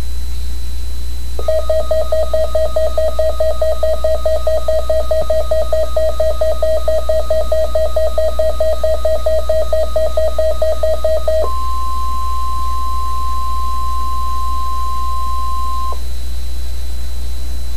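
Emergency weather alert tones: a rapidly pulsing electronic alert beep for about ten seconds, then a steady higher alarm tone for about four seconds, the weather-radio warning alarm tone that precedes a warning. A constant low hum runs underneath.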